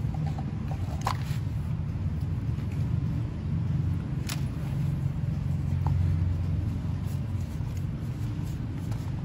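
A steady low background rumble, with a few light, sharp clicks of a small metal pick and pliers against a plastic oil filter housing as its O-rings are worked off.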